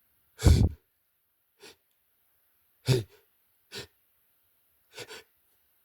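Stifled sneezes, held back and muffled: two loud bursts about half a second and three seconds in, with fainter short huffs between them and near the end.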